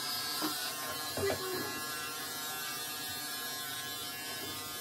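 Electric pet grooming clippers running with a steady buzz.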